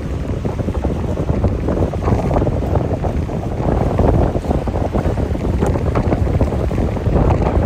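Strong wind buffeting the microphone: a steady, gusting low rumble.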